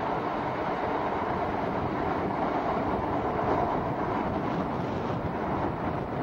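Diesel freight locomotive hauling a loaded coal train of hopper wagons past: a steady noise of engine and wheels on the rails.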